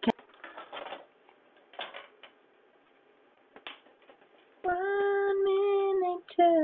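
A sharp click, then faint scattered handling noises; about five seconds in, a voice starts singing, holding one note for over a second and then breaking into a few shorter notes, heard over a video call.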